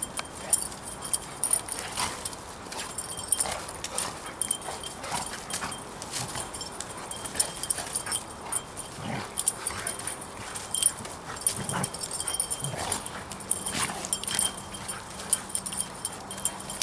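Two dogs play-fighting, scuffling and rolling in dry leaf litter with many short rustles and thuds, and now and then a brief whine or whimper.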